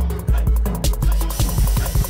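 Background music with a heavy bass beat, building to a hissing swell near the end.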